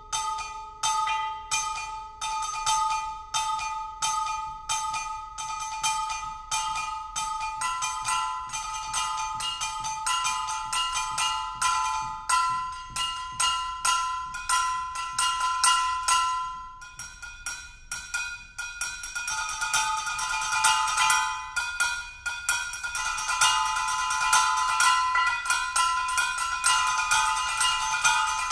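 Brake drums struck with sticks in fast rhythmic patterns, each hit a bright metallic clang that rings on. The playing thins out briefly a little past halfway, then returns as dense, overlapping strikes.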